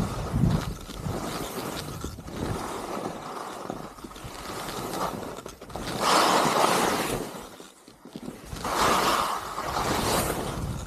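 Skis scraping and carving through snow in a series of turns, each turn a hissing surge of a second or two, with wind rushing over the microphone.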